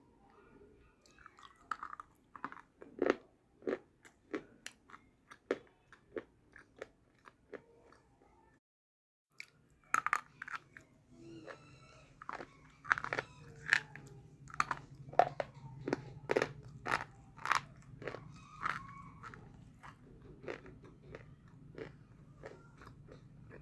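A person biting and chewing slate pencils (Multani slate), giving a run of sharp, crisp crunches one after another. They break off briefly about nine seconds in, then carry on over a low steady hum.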